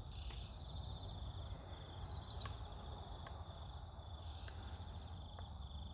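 Insects trilling steadily, a thin high-pitched chirring, over a faint low rumble, with a few soft ticks scattered through.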